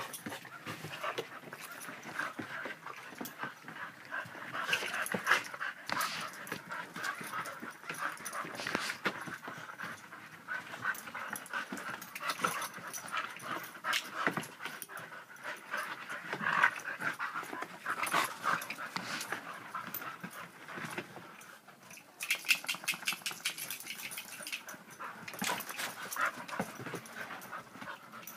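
Two wheaten terriers play-fighting, making continuous rough dog vocal noises, with a short lull about 21 seconds in.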